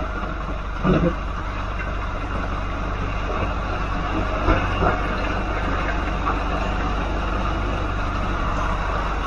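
Boat engine droning steadily under a constant hiss of noise, with a short thump about a second in.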